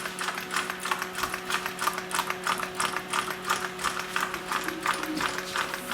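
Homemade candle-heated, Stirling-type wooden walking beam engine running. Its beam and linkage click in an even rhythm, about four to five times a second.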